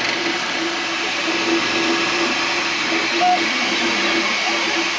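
MakerBot 3D printer printing: a steady whir of its cooling fan, with a low motor hum that starts and stops in short runs as the print head shuttles back and forth.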